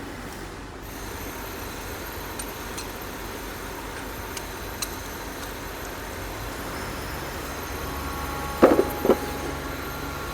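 Steady workshop background noise with a few faint ticks, then two sharp metallic clanks about half a second apart near the end, from hand tools working on the locomotive axle box cover bolts.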